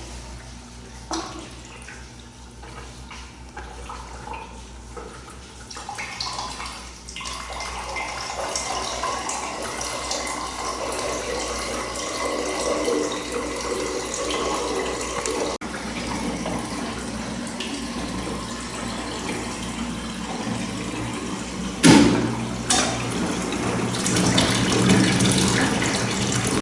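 Water running and splashing steadily in a small tank setup, growing louder about seven seconds in, with a sharp knock near the end.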